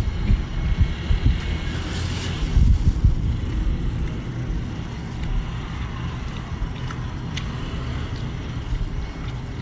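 Wind buffeting the microphone: an uneven low rumble that rises and falls in gusts, with a few faint clicks and a brief hiss about two seconds in.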